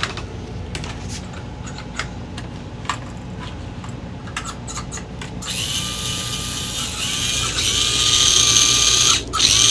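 A few light clicks of small plastic parts being handled, then about five seconds in the small electric motor of a 1/32 slot car starts running with a high whine that grows louder, breaking off briefly near the end.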